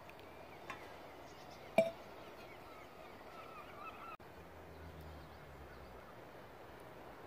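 Quiet open-air ambience with faint, wavering bird calls, a single sharp knock nearly two seconds in, and a low hum for a couple of seconds in the second half.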